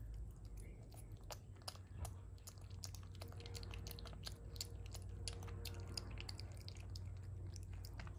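Common brushtail possum chewing a piece of frozen lady finger banana: a run of small quick mouth clicks, thickest in the middle, over a steady low hum.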